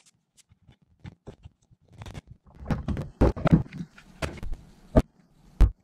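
A run of irregular knocks and thuds of objects being handled on a wooden workbench: sparse at first, busier from about two seconds in, with two sharp knocks near the end.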